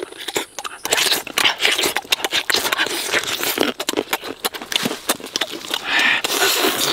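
Close-miked eating: chewing, lip smacking and tearing of grilled chicken, a dense run of small clicks and crackles starting about a second in.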